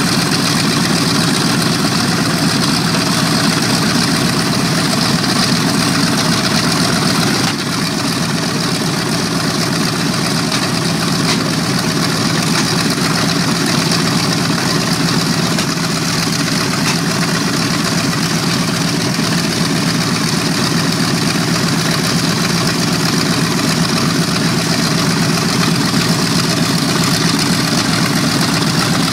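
B-25 Mitchell bomber's Wright R-2600 radial engines idling with a steady, loud, rapid beat, dipping slightly about seven seconds in.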